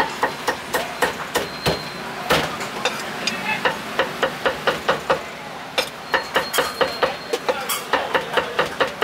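Meat cleaver chopping braised pork offal on a wooden chopping block: a steady run of sharp chops, about three to four a second, with a brief pause past the middle.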